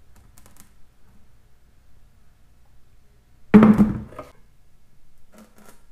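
A single heavy thunk about three and a half seconds in as a weight is dropped into a plastic bucket hanging from a fishing line under load test, with a few faint clicks before and after it.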